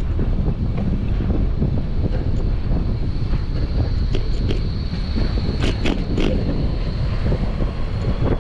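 Wind buffeting the microphone on a moving bicycle, a steady low rumble of wind and road. A thin, steady high whine comes in about three seconds in, and a few sharp clicks sound near the middle.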